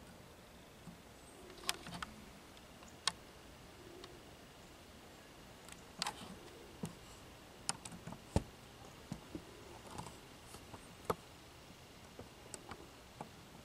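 Quiet ambience broken by scattered sharp clicks and ticks, a dozen or so at uneven intervals, with a faint steady high tone coming in about two seconds in.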